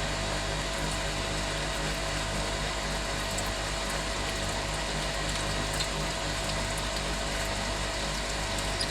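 Homemade metal lathe running at about 300 rpm while a 13.5 mm drill bit bores into the workpiece, with washing-machine-pump coolant flowing over the cut. A steady, even mechanical hum with a low drone.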